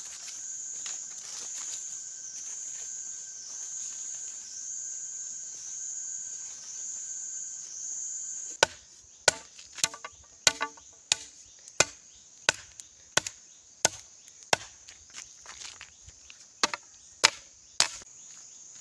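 Insects buzzing in a high, pulsing drone. About halfway through, a run of sharp chopping strikes follows, roughly one and a half a second, like a blade chopping wood.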